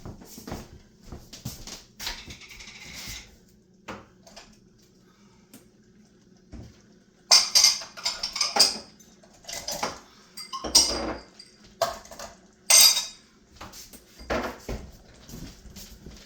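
Dishes and cutlery clattering and clinking as kitchenware is handled, with scattered light clicks and several louder bunches of clatter in the second half.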